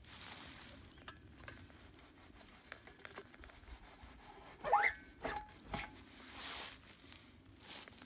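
Quiet rustling and small handling noises as a gloved hand works at the mounting of a mini backhoe's steel bucket, with a short rising squeak and a couple of light knocks about five seconds in.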